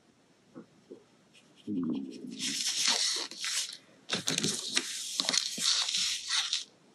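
Paper rustling on the desk, then a Derwent Graphitint pencil scratching across a paper tile as it shades, in quick strokes. The sounds start almost two seconds in and pause briefly around four seconds in.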